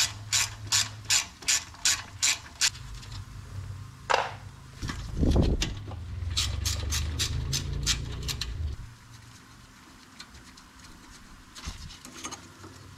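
Hand ratchet clicking in quick even strokes, about two and a half a second, as bolts on the ABS line brackets at the steering knuckle are undone. There are two runs of clicks, with a louder thud about five seconds in.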